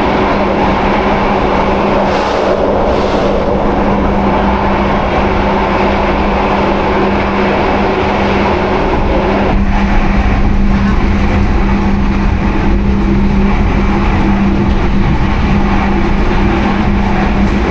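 Running noise inside a moving passenger train carriage: a steady rumble of wheels and track with a constant low hum. The noise changes a little about halfway through.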